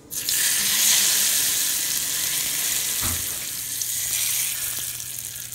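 Hot oil tempering of mustard seeds, dried red chillies and curry leaves sizzling as it is poured onto chutney in two pours, the second starting about three seconds in. The sizzle fades toward the end.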